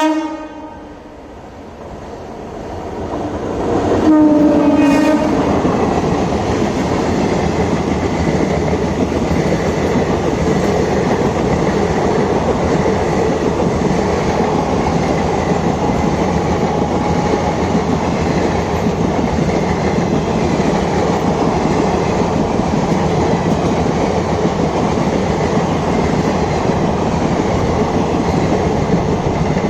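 WAP7 electric locomotive's horn sounding one blast of about a second and a half, about four seconds in, as the train draws near, then the express's coaches running past steadily, wheels clattering over the rails.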